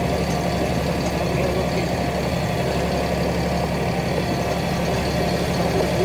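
Engine of the vehicle towing a feed wagon, running steadily with an even low hum and no change in speed.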